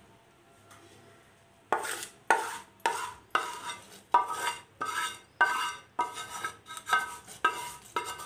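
A metal spoon scraping and knocking against a small metal pan as a ghee tempering is scraped out of it. The knocks start about two seconds in and come roughly twice a second, each ringing briefly.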